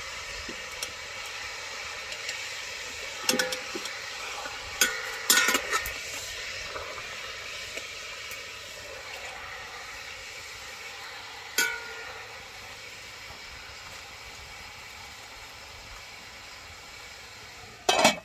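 Aluminium cooking pot clinking a few times as a whole chicken is turned in its simmering broth over a wood fire, over a steady hiss. Near the end the metal lid is set on the pot with a loud clatter.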